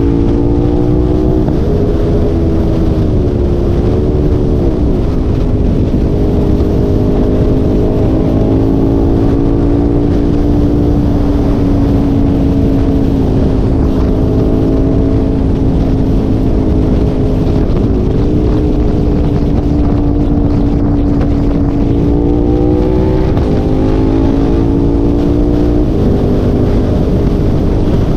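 Engine of a moving vehicle running steadily over a heavy low rumble. Its pitch dips and rises several times, stepping up a little past two-thirds of the way through and dropping again soon after.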